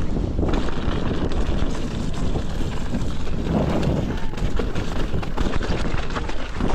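Wind rushing over the microphone of a mountain bike rider moving fast on a dirt trail, with tyre noise and frequent rattles and knocks from the bike over rough ground.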